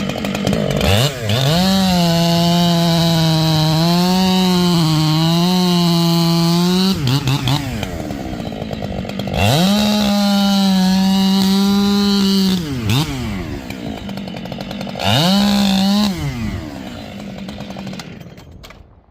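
Husqvarna 592 XP two-stroke chainsaw with a 32-inch bar and crosscut chain, run at wide open three times and dropping back toward idle between runs. In the first and longest run the pitch sags and recovers under load in solid wood. The engine stops near the end.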